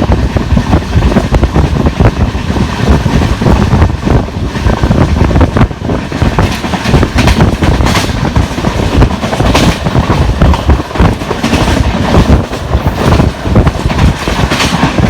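LHB passenger coaches rushing past at full line speed, wheels clattering over the rails with the repeated pounding of flat wheels: flat spots worn into the wheel treads.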